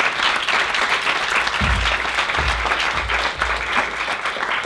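Lecture-theatre audience applauding: a dense, steady patter of many people clapping, with a few low thuds about halfway through.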